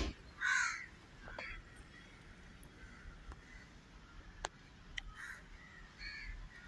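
Crows cawing: several harsh calls spread through, the loudest about half a second in. A sharp knock comes right at the start, and a couple of faint ticks follow later.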